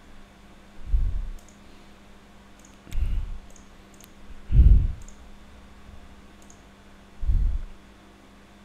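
Computer mouse clicks: several light, sharp ticks scattered through. Four dull low thumps, louder than the clicks, are spread across the same stretch.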